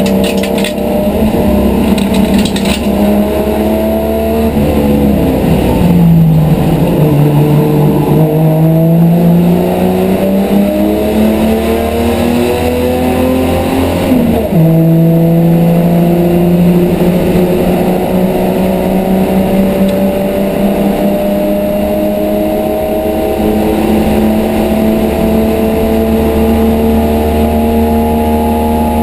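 A race car's engine heard from inside the cabin at racing speed, loud and continuous. The pitch falls a few seconds in, climbs again, drops sharply once about halfway through, then rises slowly and steadily.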